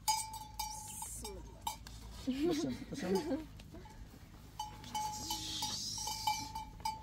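Goat bells clinking and ringing as the herd moves, with a goat bleating once, a quavering call, about two seconds in.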